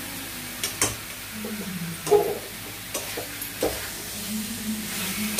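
Chicken pieces sizzling in spice masala in a metal kadai while a metal spatula stirs and scrapes them, with several sharp clinks of metal on the pan, the loudest about two seconds in.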